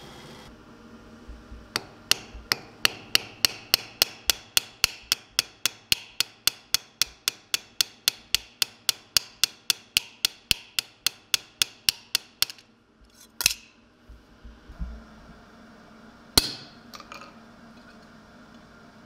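Small hammer tapping a steel sheet in quick, even strokes, about four a second, each with a bright metallic ring. Near the end there is a short scrape, then one single harder strike.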